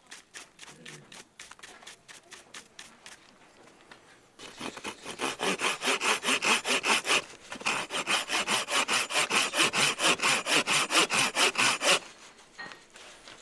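Hand saw with a red handle cutting through a dry wooden branch in quick back-and-forth strokes, about five a second. The strokes are faint at first, turn loud about four seconds in, pause briefly, then carry on until they stop near the end.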